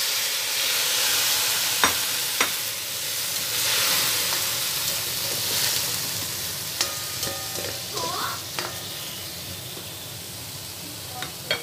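Broccoli and carrots sizzling in a hot stainless steel wok, with hissing steam from water just added, while a plastic spatula stirs them with sharp clicks and scrapes against the pan. The sizzle slowly dies down toward the end.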